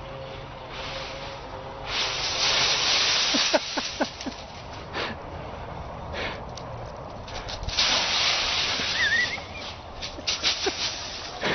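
Dry autumn leaves rustling in loud bursts as a husky thrashes about in the pile, with scattered crackles between the bursts.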